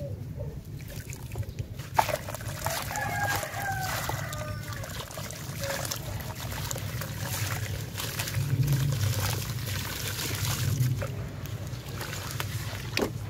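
Wet sand-cement chunk crumbling and dripping into a tub of water, then hands squishing and stirring the gritty mud, with scattered splashes and trickles. A bird calls in the background from about two to five seconds in.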